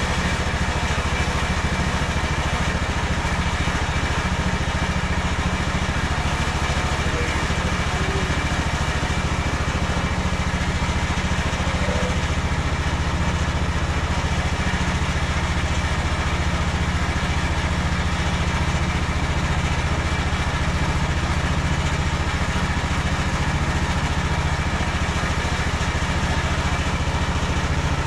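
Engine of a MechMaxx SM32 portable sawmill running steadily at constant speed.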